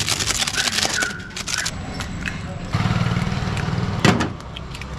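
Hands scraping and mixing dry spice powder around a large aluminium bucket. A vehicle engine hums nearby for about a second past the middle, and there is a sharp knock just after four seconds in.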